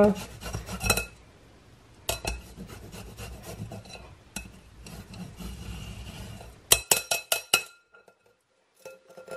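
Garlic being scraped off a stainless steel rasp grater with a silicone spatula: soft scraping and rubbing. About seven seconds in comes a quick run of sharp metallic taps that ring briefly.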